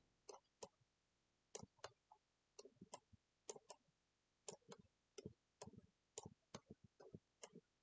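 Faint computer mouse clicks, irregular, roughly two a second.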